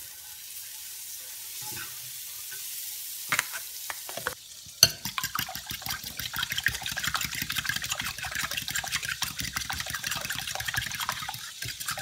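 Egg, milk and cinnamon batter being beaten by hand in a glass bowl: rapid clinking and scraping of the utensil against the glass, starting about five seconds in. A steady hiss comes before it.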